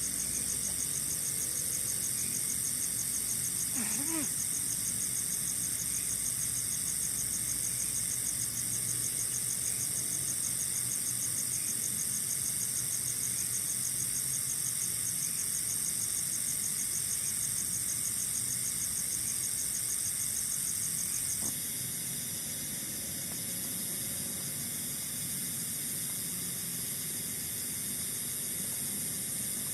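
Night chorus of forest insects: a steady high-pitched trill over a fast, even pulsing, which changes abruptly about two-thirds of the way through. A low steady rumble runs beneath it, and one short rising call comes about four seconds in.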